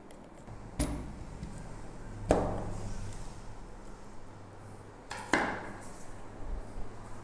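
Three sharp knocks, the middle one the loudest, as the greased gear and bearing assembly of a Kent electric drill is handled and seated into its plastic gearbox housing.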